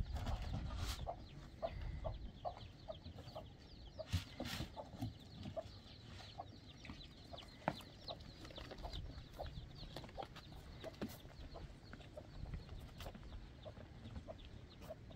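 Chickens clucking, short calls repeating every fraction of a second, with a few sharp knocks in the first five seconds.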